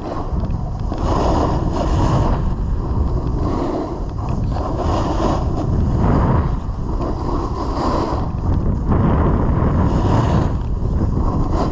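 Snowboard edges scraping over packed, groomed snow while riding downhill. The scrape swells every two to three seconds as the board turns, over a constant low rush of wind buffeting a head-mounted GoPro microphone.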